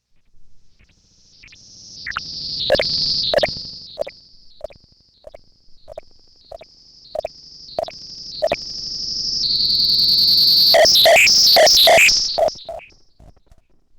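Modular synthesizer patch run through a PT2399 digital delay module. A high whistling tone swells and fades while short blips repeat about every 0.6 seconds. The tone swells again to its loudest and breaks into a fast, glitchy chatter, which cuts off suddenly near the end.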